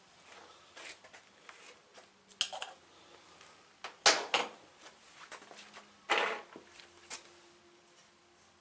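Metal tools and parts clinking and knocking as they are handled on an engine: a handful of separate light clanks, the loudest a few seconds in.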